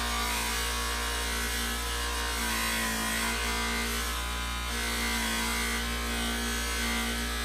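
Wood being rubbed and scraped by hand, held in a bench vise.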